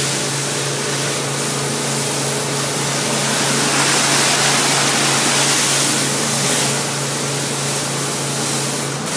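Hot-water pressure washer running a surface spinner on concrete at about 3500 psi: a steady, loud hiss of spray over a constant low machine hum.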